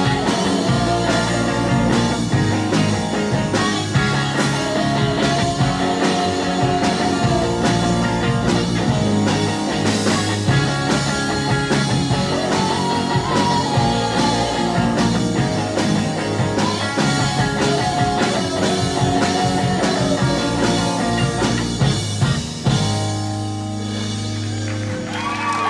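Live rock band playing: electric guitar, bass guitar, drum kit and keyboard under a female lead vocal. About 23 s in the drums drop out and the band holds a final sustained chord.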